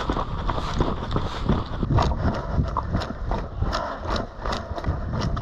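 Hurried footsteps of a player moving across the ground, a few irregular thuds and clicks a second, over low rumbling handling noise.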